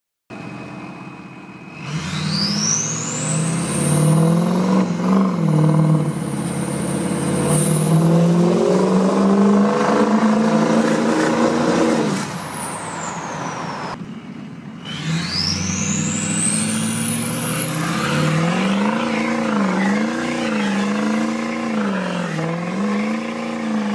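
2003 Ford 6.0 Powerstroke V8 turbodiesel being revved hard, its turbo whistle rising steeply as it spools up about two seconds in. The whistle falls away when the revs drop about halfway through, then spools up again. Near the end the engine revs rise and fall several times.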